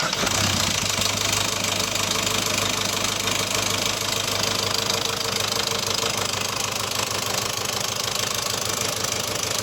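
Peugeot 207's 1.6 HDi 16-valve diesel engine idling just after starting, with a steady, heavy knocking from inside the engine. The knock is the fault being diagnosed, which the video links to loss of power and low oil pressure.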